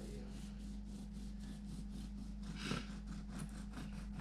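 A knife sawing back and forth through the crust of a home-baked bread-maker loaf: a quick, even run of rasping strokes.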